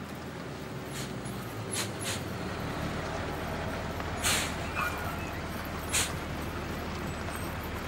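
Horse truck's engine running in a low, steady rumble as it drives up, with several short hisses over it, the loudest about four seconds in.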